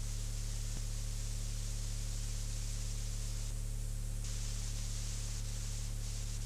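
Steady tape hiss with a low electrical mains hum underneath and no recorded sound; the hiss thins briefly about three and a half seconds in.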